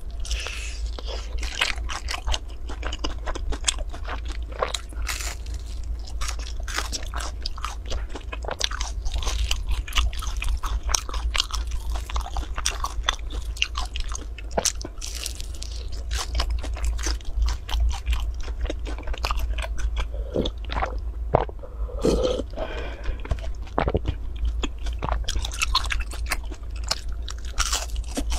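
Close-miked biting, crunching and chewing of a crispy fried cake with a soft, stretchy white filling: many sharp crunches in quick succession throughout. A low steady hum runs underneath.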